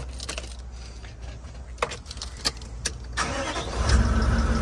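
Toyota Land Cruiser 76 Series 4.5-litre V8 turbo-diesel being started on the key. A few light clicks come first; about three seconds in the starter cranks, and the engine catches about a second later and settles into a steady idle.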